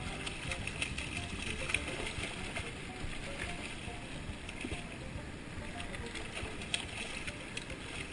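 Shallow river water rushing and splashing close to the microphone as a wading angler handles and releases a fish at the surface, with many small sharp splashes. Music plays faintly underneath.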